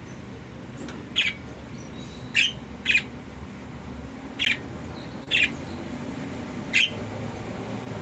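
Budgerigar giving short, sharp chirps, six in all at uneven intervals.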